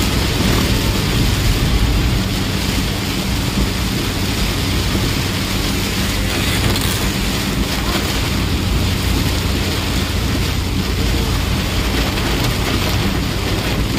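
Heavy rain beating on a moving bus, over the steady low drone of the bus engine, heard from inside the cab.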